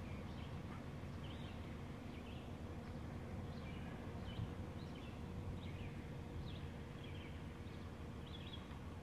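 Small birds chirping in short high calls, one every second or so, over a steady low rumble.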